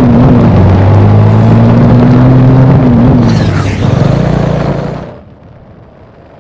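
Honda Rebel 250 motorcycle engine and exhaust running as the bike rides along, a steady note that dips briefly in pitch twice, then fades out about five seconds in.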